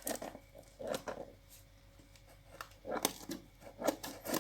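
Cardboard shipping box being handled and opened: irregular scrapes, rustles and light taps.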